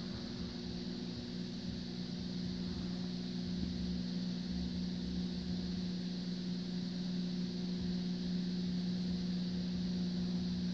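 Steady low electrical hum with a faint hiss from an old soundtrack transfer, with nothing else happening.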